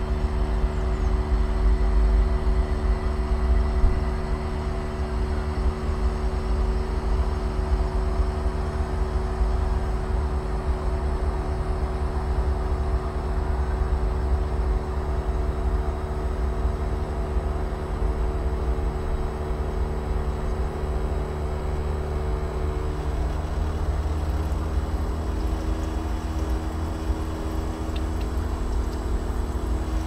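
Vaillant aroTHERM Plus heat pump outdoor unit humming steadily in its defrost cycle, several steady tones over a low rumble, as frost melts off its coil. About 23 seconds in, the higher tones step down in pitch as the unit changes speed.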